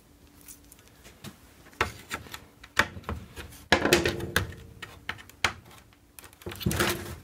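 Scattered clicks and knocks of hard plastic and a steel pair of needle-nose pliers being handled and set down on a washing machine's plastic lid, while the plastic display panel is moved about; the knocks are busiest in the middle and come again near the end.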